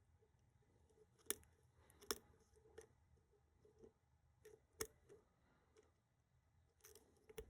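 Lock pick and tensioner working the pins of a pin-tumbler lock: a few faint, sharp metallic clicks, spaced apart and loudest about a second and a half, two seconds and five seconds in.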